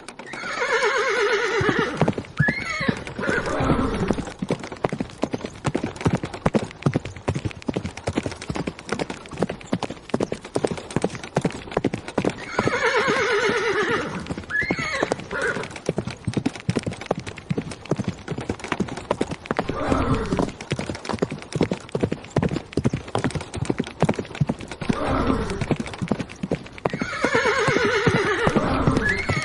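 Horses galloping, with a fast, continuous drumming of hooves. A horse whinnies loudly three times, near the start, about halfway and near the end, and there are a few shorter, lower calls in between.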